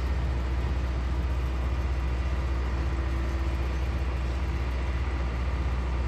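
Diesel engines of tree-removal machinery (a knuckle-boom crane truck, skid steer and wood chipper) running steadily with a low, even rumble.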